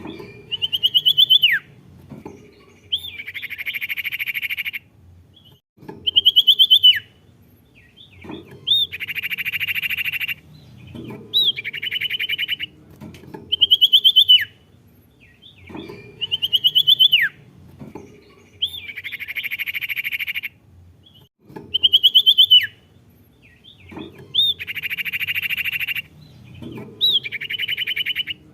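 Recorded song of a sirtu songbird played on a loop: short trilled whistles, each ending in a falling slur, alternate with buzzy rattling chatters about two seconds long, the sequence repeating over and over. It is the kind of playback used to provoke a caged bird of the same kind into singing.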